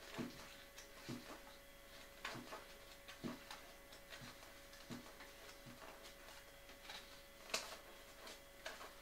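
Faint paper rustles and soft flicks as the pages of a LEGO instruction booklet are turned one after another, about one a second, the sharpest near the end.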